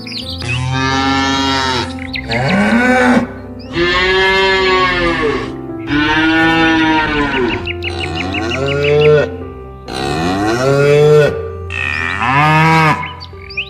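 A bovine mooing about seven times in quick succession. Each call lasts a second or so and rises then falls in pitch. Background music with sustained notes plays underneath.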